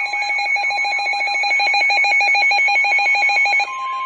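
Electronic weather-radio alert: a loud, fast-trilling warble that switches abruptly, about three and a half seconds in, to a steady single-pitch tone. The steady tone is the 1050 Hz NOAA Weather Radio warning alarm tone, the signal that a new warning broadcast is about to begin.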